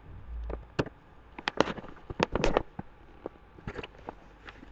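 Computer keyboard keystrokes, irregular clicking with a quick flurry of keys about two seconds in.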